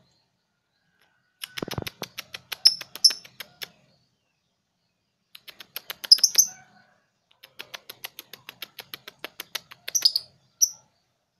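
Young lovebird, about three months old, practising its ngekek chatter. It gives three short bouts of rapid ticking chirps, about eight a second, with louder shrill squeaks among them. The broken, short bouts are those of a juvenile still learning the long continuous ngekek.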